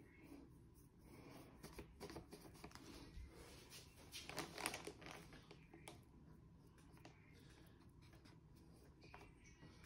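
Faint scratchy brushing and plastic-film rustling as a paintbrush works acrylic paint over a toilet seat wrapped in plastic. The noises are busiest near the middle.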